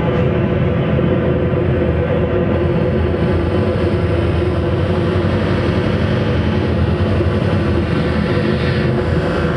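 Live band playing loud, dense droning music: steady sustained tones layered over a thick wash of noise, with no beat or break.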